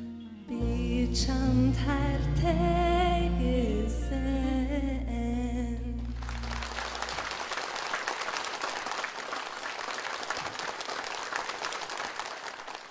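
A woman singing the closing line of a Mongolian song over piano accompaniment; the music ends about halfway through and audience applause follows.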